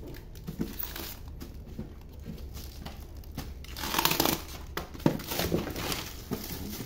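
Clear plastic stretch wrap crinkling as a hand presses and smooths it over a wrapped printer: faint scattered rustles at first, then a louder burst of crinkling about four seconds in, with more crinkles after.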